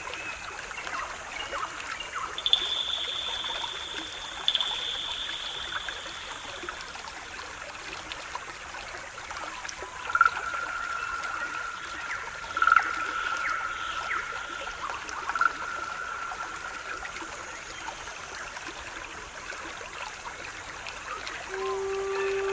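A small stream of running water trickling steadily, with a few long, thin, high whistling tones over it. A low flute note starts just before the end.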